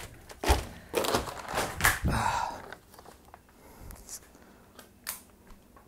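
Handling noise from a dropped camera being picked up: knocks, bumps and rustling of plastic sheeting, busiest in the first two and a half seconds, then a few faint clicks.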